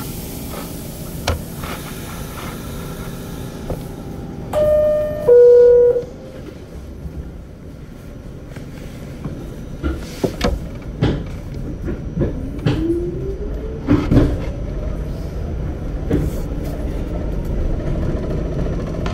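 Inside a New York City subway car: a steady rumble, broken about five seconds in by the loud two-note falling door chime that warns the doors are closing. Later come a few sharp knocks and a rising whine from the train's motors as it picks up speed.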